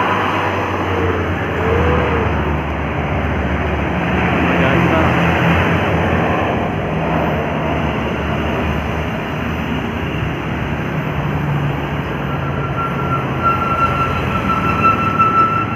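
Heavy diesel vehicle's engine running with a low, steady drone and road noise, voices mixed in. About twelve seconds in, a steady high tone starts and holds.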